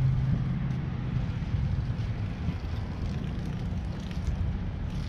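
Downtown street traffic: a steady low rumble of vehicles, with one engine's low hum fading away in the first second.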